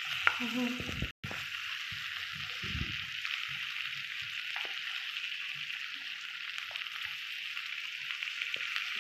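Pieces of fish frying in hot oil in a pan, with a steady sizzle. The sound cuts out briefly about a second in, then the sizzle carries on.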